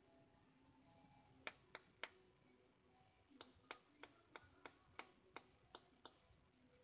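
A string of light, sharp clicks: three in quick succession, then after a pause about nine more at roughly three a second.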